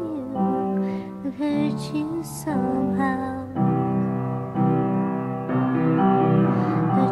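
Music: a slow song of long held notes on piano with a singing voice.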